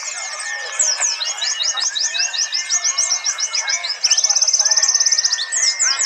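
Several white-eyes (pleci, Zosterops) singing at once in fast, high, overlapping chirping trills. About four seconds in, one bird holds a very fast, even trill for about a second and a half.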